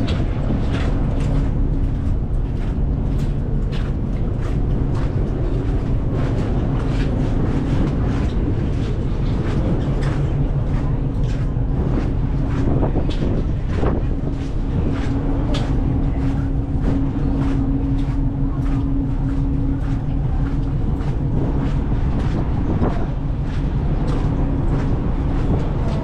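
A car ferry's engines and machinery droning steadily, heard on board: a continuous low hum with steady tones. Many small irregular clicks and rattles run through it.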